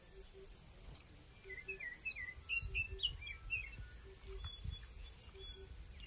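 Birds singing: a quick run of high chirps through the middle, over a faint low two-note call that repeats about every second and a half.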